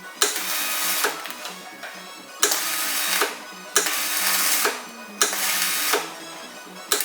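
Welding arc struck in four short bursts of about a second each, each starting with a sharp crack and then a dense crackling hiss, with brief pauses between, as in tack or stitch welds. Background music underneath.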